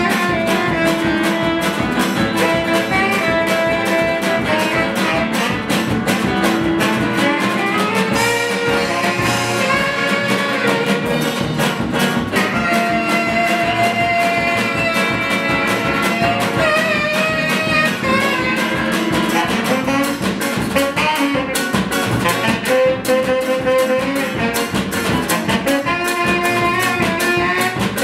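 Ethno-jazz ensemble playing: a tenor saxophone carries held melodic lines over double bass, guitar and a steady rhythm of hand drums and cymbals.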